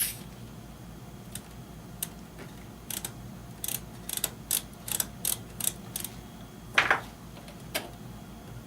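Receiver control switches being worked back and forth after a contact-cleaner spray: a run of sharp mechanical clicks, two or three a second at the busiest, like a detented switch turned through its positions. A louder, longer click comes near the end.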